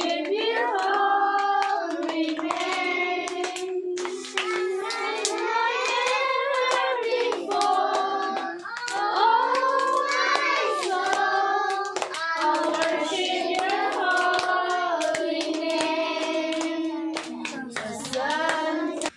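A group of children singing a song together while clapping their hands along.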